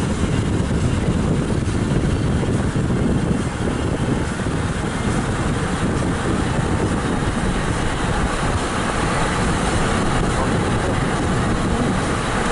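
Steady road noise inside a moving car: a continuous low rumble of tyres and wind with no break or change.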